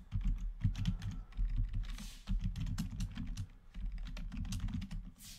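Typing on a computer keyboard: a run of irregular keystrokes, with a low hum underneath.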